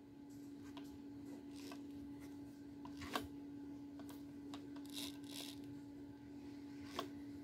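Gloved hands handling a corded impact drill: glove fabric rubbing on the casing, with a sharp click about three seconds in and another near the end.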